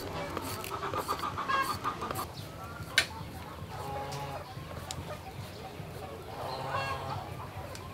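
Domestic chickens clucking in short calls, with one sharp click about three seconds in.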